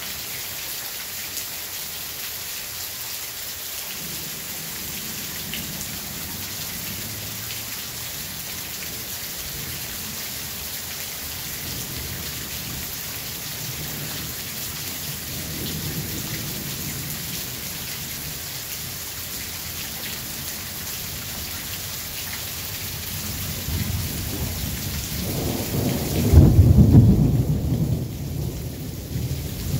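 Steady rain falling through a thunderstorm, with thunder rumbling low several times and a much louder, longer roll of thunder near the end.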